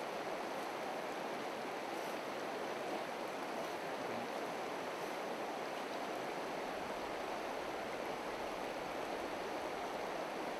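Shallow river running over stones and a rocky riffle: a steady, even rush of flowing water.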